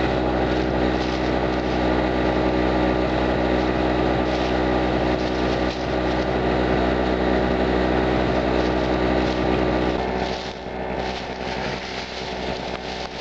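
Small Chicago Electric two-stroke portable generator engine running steadily at a constant pitch. About ten seconds in, the sound becomes quieter and thinner.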